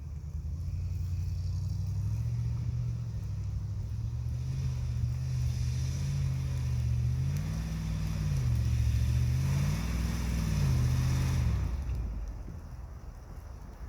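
Car engine running and revved up twice, pitch rising and falling each time, with a rushing noise under the revs before it drops back near the end. This is a car straining to drive out of ground softened by a thunderstorm.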